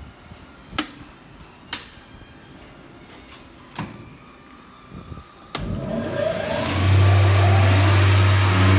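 A few sharp clicks, then the electric cutter-spindle motors of an SCM P 64 four-sided moulder are switched on: about five and a half seconds in a motor starts, its hum rising in pitch as it spins up and settling into a loud, steady hum, with another motor joining near the end.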